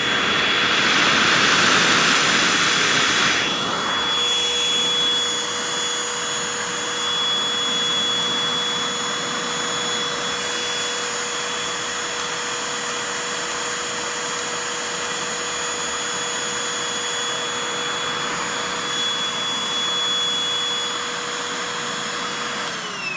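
Oraimo OHV-103 cordless handheld vacuum cleaner running with a steady high whine, louder and airier for the first three or four seconds. Near the end it is switched off and the motor winds down, its whine falling in pitch.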